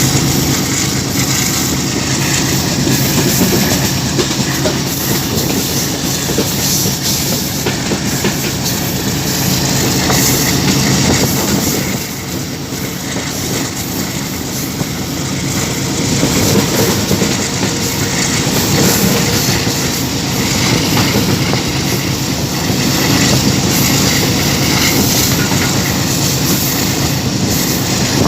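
Passenger train hauled by a GEU 20 diesel-electric locomotive running along the track, with wheels clattering over the rail joints. The noise eases for a few seconds about twelve seconds in, then builds again.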